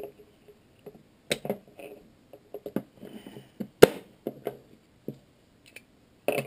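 Plastic parts of a Hi-Capa airsoft pistol clicking and knocking as they are handled and pressed together, the plastic upper being a tight fit. There is an irregular series of sharp clicks, with one louder snap nearly four seconds in.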